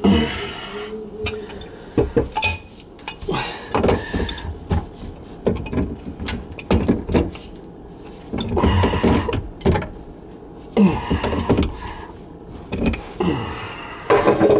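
Irregular knocks, clicks and scraping from plastic PVC drain pipe and fittings being handled, and a metal wrench being worked on the slip nut where the drain arm meets the cast-iron tee under a kitchen sink.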